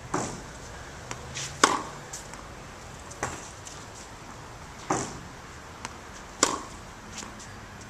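Tennis balls being struck by rackets, five sharp pops about every one and a half seconds, with fainter knocks in between.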